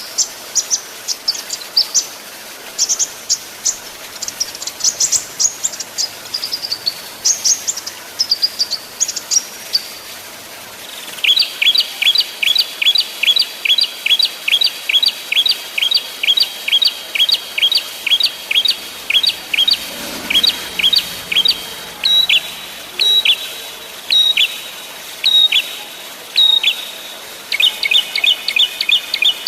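Small songbirds singing: scattered high, sharp chirps for about the first ten seconds, then a long, fast run of repeated sharp down-slurred notes at about three a second, thinning out and then turning into a denser trill near the end.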